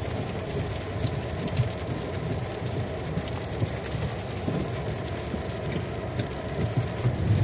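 Steady low rumble of tyres and engine inside the cabin of a 2013 Ford Taurus SHO rolling over an icy road, with a few faint ticks.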